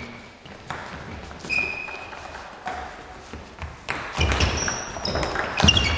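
Table tennis ball clicking and bouncing at irregular intervals in a large hall, some clicks leaving a short high ring. Heavier thuds of players' footwork come in the second half.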